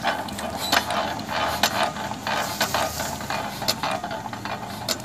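12 hp single-cylinder stationary engine being hand-cranked: irregular mechanical clicks and clacks as it is turned over by the crank handle, the engine not yet firing.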